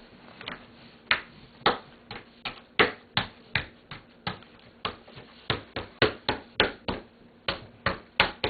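Slime being worked by hand, giving a string of sharp slaps and pops, about two to three a second at an uneven pace.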